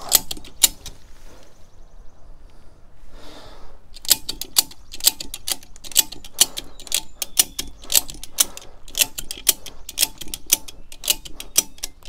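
Homemade ratchet-strap hand winch being cranked under load. The ratchet pawl clicks in quick runs, several a second, as the handle is worked back and forth to wind in the line. After a few first clicks there is a pause of about three seconds, then the clicking goes on steadily.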